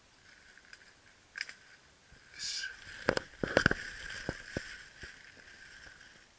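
Rustling and crackling of dry leaf litter and twigs under a mushroom picker moving on the forest floor, with camera handling noise. A cluster of sharp snaps about three seconds in is the loudest part.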